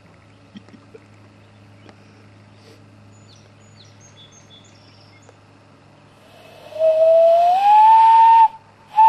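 Common loon wailing: a long call that glides up and then holds a high note, starting about seven seconds in, breaking off for a moment, then picking up again on the same held note.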